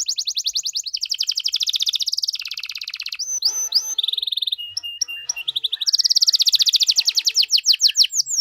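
Domestic canary singing loudly and continuously: fast trilled rolls of rapidly repeated notes, broken in the middle by short whistled notes, then more rapid rolls and falling sweeps toward the end.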